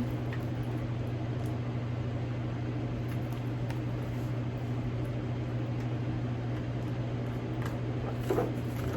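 Steady low electrical or fan-like room hum, with a few faint clicks and rustles of a bag's strap hardware being handled and fitted.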